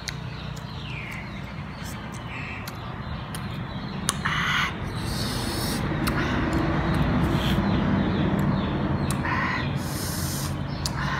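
Mouth sounds of chewing and slurping juicy lemon slices, with sharp clicks and scrapes of a metal fork and spoon against the plate.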